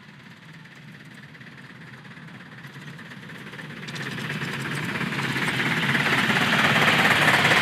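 A 7¼-inch gauge miniature steam locomotive, the green BR Britannia Class '70000 Britannia', hauling a loaded passenger train towards the listener. Its running grows steadily louder as it approaches, with the sharpest rise from about four seconds in.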